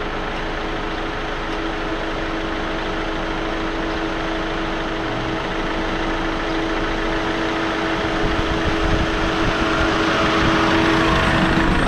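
Campervan engine running at idle, then gradually louder in the last few seconds as the van rolls forward toward the camera and over it.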